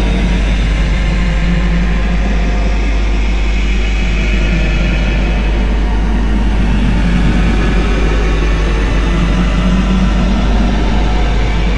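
Heavy background music: a dense, constant wall of sound with a deep steady bass and low held notes that change every few seconds.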